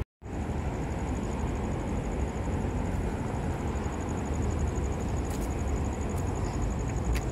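Steady low outdoor rumble and hiss, with a faint high steady whine above it.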